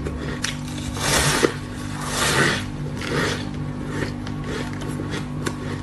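Mouthful of powdery ice being chewed: three loud crunching bursts about a second apart, with small crackles between them.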